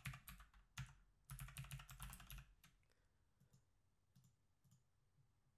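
Typing on a computer keyboard: a quick run of keystrokes for about the first two and a half seconds, then a few faint single clicks.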